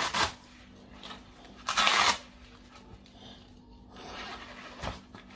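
Velcro straps of a waist-trainer belt ripped open twice, at the start and again about two seconds in, with softer rustling of the garment afterwards.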